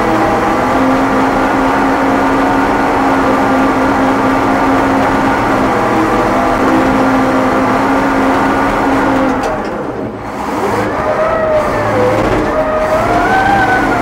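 International Harvester TD20E crawler dozer's 13-litre DVT800 V8 diesel running steadily as the machine works. About ten seconds in the sound dips briefly, then higher tones rise and fall.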